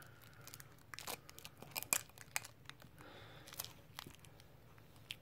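Faint scattered clicks and rustles of hands handling the fittings and plastic packaging of a new air compressor, with a brief soft rustle about three seconds in.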